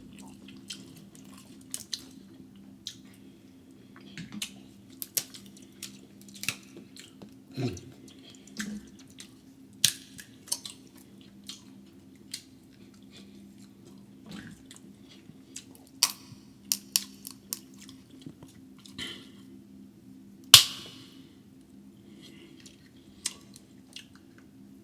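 Close-miked eating of crab: chewing and smacking with scattered sharp cracks and snaps of crab shell, the loudest crack about 20 seconds in, over a steady low hum.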